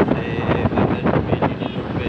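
Wind buffeting the microphone of a moving vehicle, over road and traffic noise.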